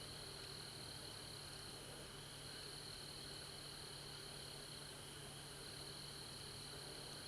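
Faint, steady chorus of night insects, with several high, even tones trilling continuously.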